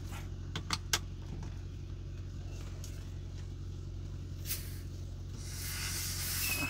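Semi truck's diesel engine idling steadily, with a few sharp clicks about a second in and a hiss that builds near the end and then cuts off.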